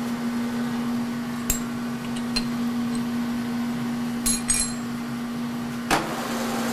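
Steady hum of a K&T 2HL horizontal milling machine's drive, with a few small metallic clinks. Then a single sharp clunk near the end as the spindle engages and the three-jaw chuck starts turning.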